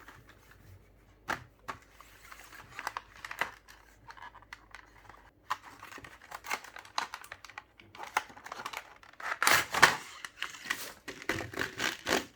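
Packaging of a brush pen set being handled and opened: crinkling, rustling and small clicks, with a louder tearing rip near the end.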